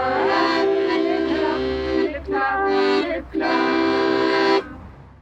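Accordion playing the tune of a German folk children's song in held chords, in three phrases with short breaks between them. The last chord stops about four and a half seconds in and fades away.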